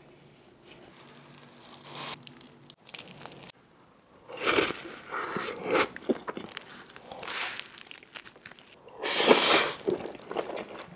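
Close-miked ASMR eating sounds: crunchy food being bitten and chewed, with quiet crackling at first, a loud crunching bite about four and a half seconds in and the loudest one about nine seconds in.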